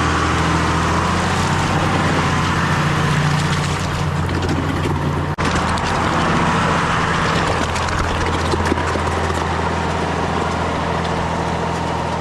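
John Deere 7520 tractor's diesel engine running steadily, heard up close, with a momentary break in the sound about five seconds in.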